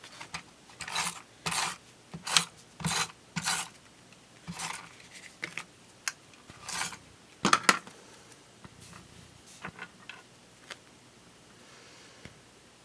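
Paper being rubbed and handled on a scrapbook page: a run of short scraping strokes about every half second, then scattered, fainter rustles and rubs.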